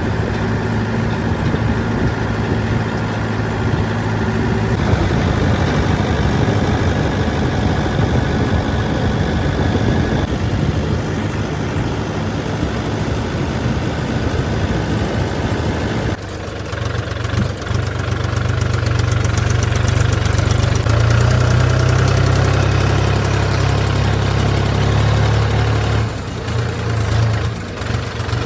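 Diesel engines of a backhoe loader and farm tractors running steadily. About sixteen seconds in, the sound changes abruptly to a deeper, steady engine note.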